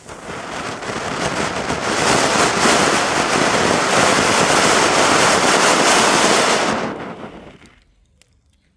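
Ground fountain firework spraying sparks: a loud, steady hissing rush with a fine crackle. It builds over the first two seconds and dies away about seven seconds in as the fountain burns out.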